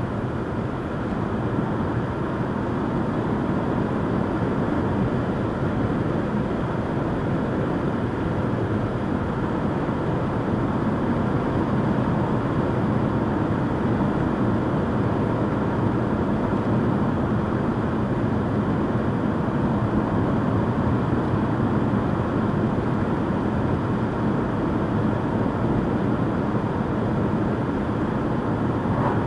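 Steady road noise of a moving car heard from inside the cabin: tyres on asphalt and the engine at a constant cruising speed.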